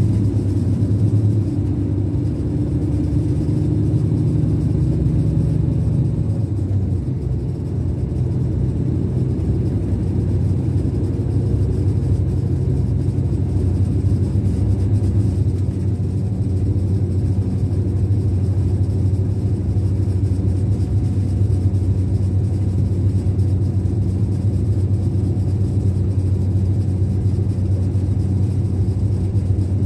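Scania K410 coach's rear-mounted DC13 inline-six diesel running on the road, heard from the upper deck as a steady low drone. About six to seven seconds in, a higher tone in the engine note fades away and the level dips slightly, then the drone runs on evenly.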